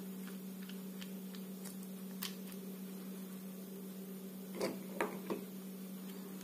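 Light clicks of a screwdriver and plastic toy truck parts being handled, then three sharper knocks a little past the middle as plastic parts are set down on a wooden table, over a steady low hum.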